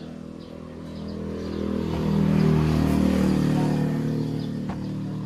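A motor vehicle engine running, getting louder to a peak about two seconds in, then easing off.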